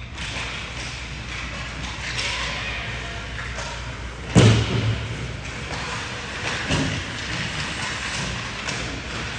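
A basketball thuds hard on a gym floor about four seconds in, followed by a few lighter bounces, over the steady hubbub of a game in progress.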